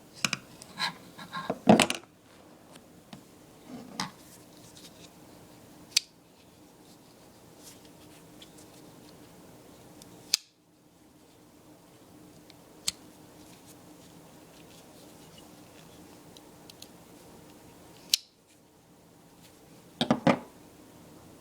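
Metal clicks and snaps from handling an old three-blade pocketknife as its blades are worked. There is a quick cluster of clicks at the start, single sharp clicks every few seconds in the middle, and another short cluster near the end.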